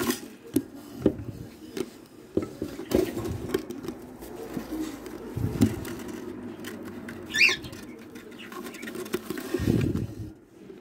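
Rustling, scraping and irregular knocks in a pigeon's nest box of wood shavings, close to a brooding pigeon, with heavier bumps about five and a half seconds in and near the end. A single short high squeak sounds about seven and a half seconds in.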